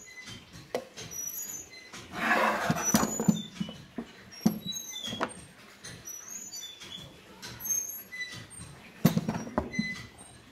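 A cast-iron belt and disc sander, switched off, is handled and tipped over on a wooden bench, giving irregular knocks and clunks of the metal housing. A longer scraping rustle comes about two seconds in, and the loudest knock comes about nine seconds in. Faint, short high-pitched chirps can be heard in the background.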